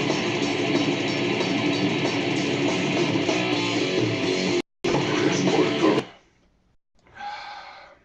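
Death metal with heavy distorted electric guitars playing loud. It drops out for a split second, then stops abruptly about six seconds in. Near the end comes a short vocal sound.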